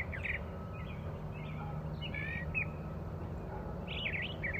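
Birds chirping in short, quick bursts of notes, three times, over a steady low background rumble.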